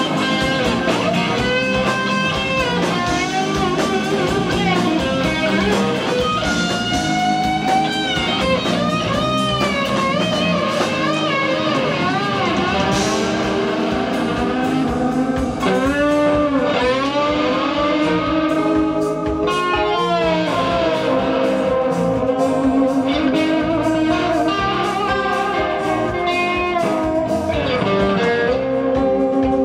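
Live rock band: an electric lead guitar solo played on a Sky Guitar, full of wide string bends and vibrato, over drums and a second guitar.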